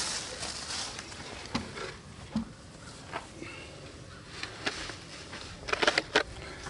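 Handling noise as a live chicken is pushed head-down into a plastic bleach-jug restraint: scattered rustles and light knocks of feathers and plastic, with a louder cluster of clicks and knocks about six seconds in as its head is pulled through the bottom.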